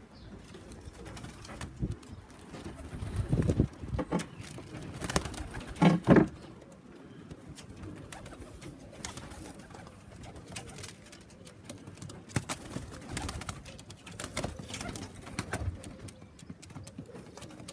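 Racing pigeons cooing around the loft, with scattered knocks and taps.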